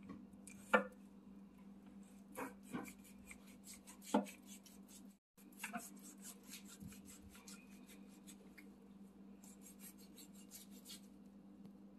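Kitchen knife trimming fat off a raw beef brisket: short slicing and scraping strokes through the fat, with a few louder clicks in the first four seconds and a quick run of small strokes later, over a steady low hum.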